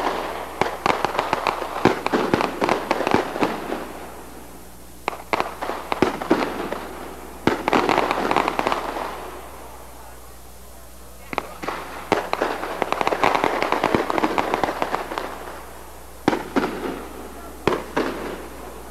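Firecrackers going off in several rapid crackling bursts of sharp pops, with short quieter gaps between them.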